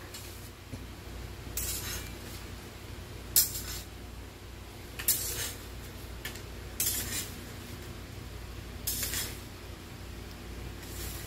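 A metal slotted spatula scraping across the floor and clinking against a pan as paper banknotes are scooped into it. There are six short scrapes, about one every two seconds.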